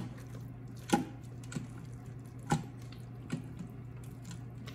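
A silicone scraper stirring thick, creamy dip in a stainless steel pressure-cooker pot, knocking sharply against the pot's side several times, loudest about one and two and a half seconds in. A steady low hum runs underneath.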